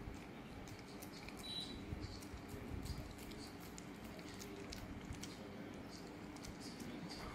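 Border collie licking and chewing soft durian flesh from a hand: faint, irregular small smacking clicks of the dog's mouth.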